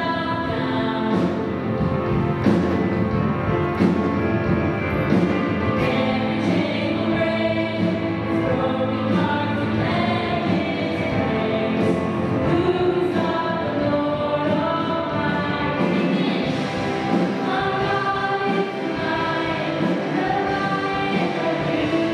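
Christian worship music: a group of voices singing a slow song over instrumental backing, with drum hits keeping a steady beat.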